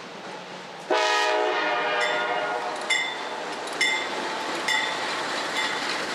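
CSX freight locomotive's air horn sounding one short toot about a second in. The locomotives then run past at close range, with sharp clacks about once a second from the wheels passing over the track.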